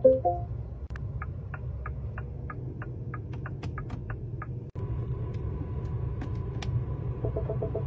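Electric car's turn-signal indicator ticking about three times a second over a steady low cabin hum. After a cut, a thin steady tone and, near the end, a rapid run of short electronic warning beeps.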